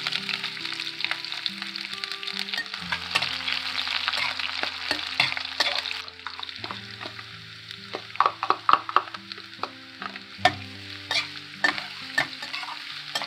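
Sliced onions sizzling in hot oil in a stainless steel kadai. The sizzle is strong at first and dies down after about six seconds. In the second half a metal spatula scrapes and clicks against the pan as the onions are stirred.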